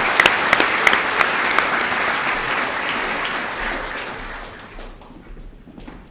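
Audience applauding, the clapping dying away over about five seconds.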